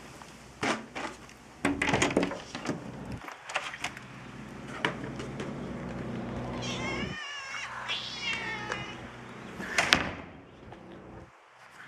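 Feral cats meowing repeatedly, a few of the calls wavering in pitch, over the steady low hum of an electrical transformer.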